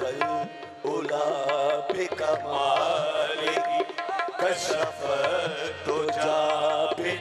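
Qawwali-style devotional music: a harmonium playing a held melody over tabla strokes, between sung verses.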